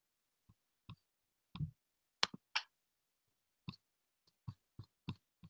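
About ten faint, irregularly spaced clicks of a computer being operated while the slide show is moved back to its first slide.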